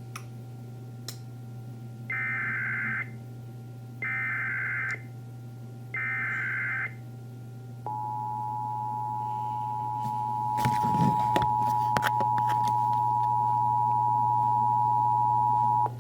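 Emergency Alert System signal from a radio receiver: three one-second bursts of warbling digital header data, then a long steady attention tone that starts about halfway through and holds to the end, announcing an alert message. A few crackles of static break in over the tone, above a low steady hum.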